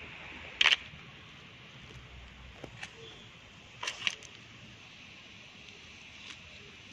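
Faint steady outdoor background hiss, broken by a few short sharp clicks or rustles: one about half a second in, a couple of lighter ones near three seconds, and a pair about four seconds in.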